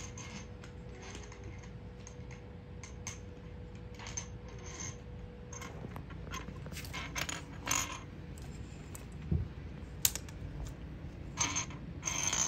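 Scattered light clicks, taps and scrapes from a mother cat and her kittens wrestling and scrambling on a tile floor, with a sharper click about ten seconds in.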